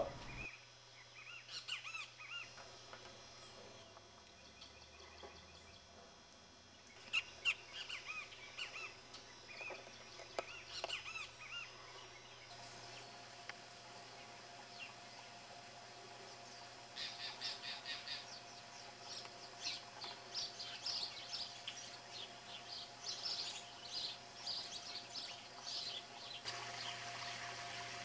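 Wild birds chirping and calling in short, scattered notes, faint, growing busier in the second half.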